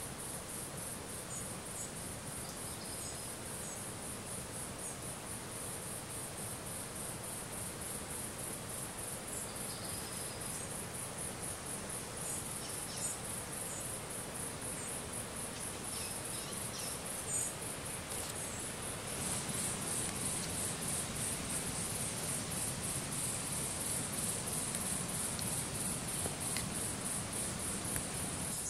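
Insects trilling in a steady, high-pitched, evenly pulsing chorus, with a few faint short chirps scattered through it.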